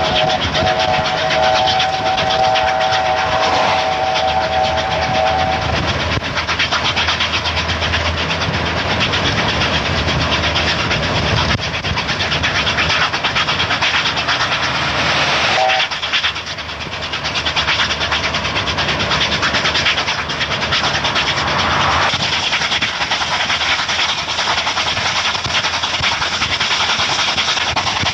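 C38-class steam locomotive 3801 running at speed with its express passenger train, a steady rushing noise, its whistle sounding a chord for about six seconds at the start and a short toot again about halfway.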